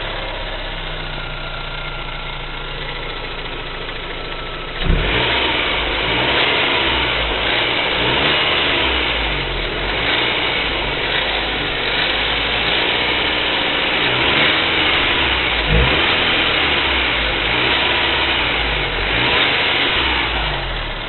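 BMW E46 318i four-cylinder petrol engine idling steadily, then blipped repeatedly from about five seconds in, the revs rising and falling over and over before settling back to idle near the end. The owner suspects the engine's noises come from the hydraulic lifters, and its DISA valve is defective.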